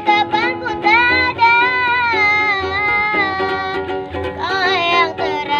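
Ukulele strummed in a steady rhythm, accompanying a young voice singing a melody with long held notes that bend in pitch.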